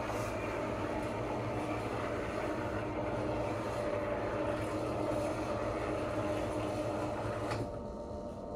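Motorised roller blind running as it rolls up, a steady whirring hum that cuts off abruptly near the end when the blind reaches the top.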